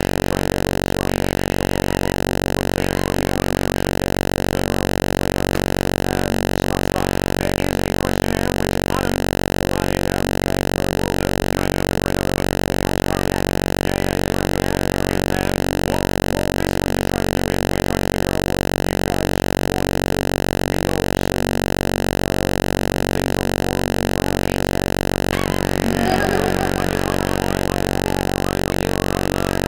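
Loud, steady electrical buzz, like mains hum, with many even overtones and no change in pitch or level. About three-quarters of the way through, a brief faint scatter of other sound passes.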